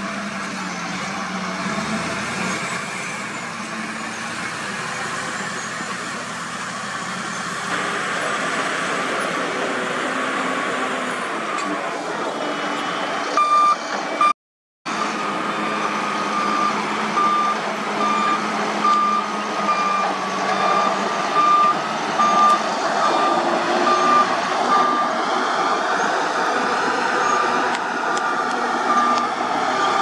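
Diesel engines of a SHACMAN dump truck and heavy earthmoving machines running. Through the second half, a reversing alarm beeps over them at a steady, repeated pitch.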